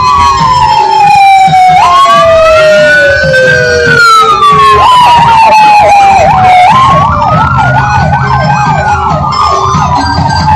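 Police car sirens sounding. For the first few seconds two overlap: one slowly rises and falls while the other glides steadily down. From about halfway through, a fast warbling yelp runs alongside the slow wail, over a low rumble of traffic.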